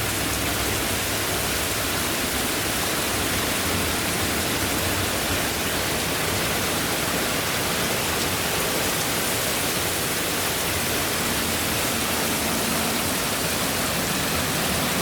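Heavy tropical-storm rain pouring down, a loud, steady, even hiss with no let-up.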